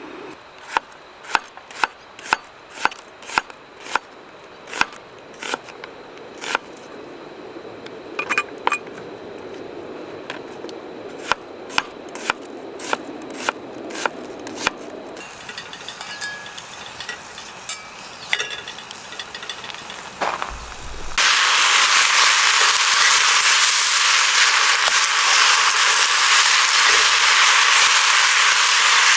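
Wood fire crackling, with a run of sharp pops and snaps over a low rushing of flames. About two-thirds of the way through, a loud steady hiss starts and covers the rest.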